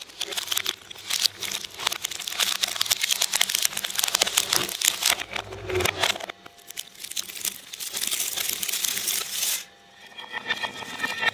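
Shredder tearing and crunching material fed into it, a dense crackle of small snaps that eases off about six seconds in, picks up again, and cuts off suddenly near ten seconds. It then gives way to a steadier motor running with a rattle.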